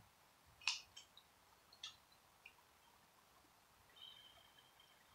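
Near-quiet room tone with a few short, sharp clicks in the first half and a faint, thin, high bird chirp near the end.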